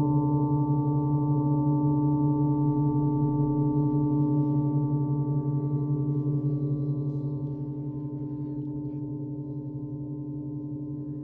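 A 50-inch Oetken Sound Creation Gong sounding a low drone of several steady, overlapping tones that slowly fade. The highest overtone drops out about two-thirds of the way through, leaving the deep hum.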